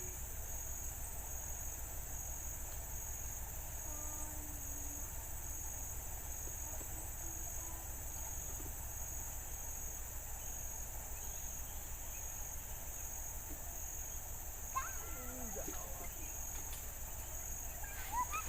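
Steady high insect drone, pulsing slowly and evenly, over a low rumble; a few short rising-and-falling animal calls come about three-quarters of the way through and again near the end.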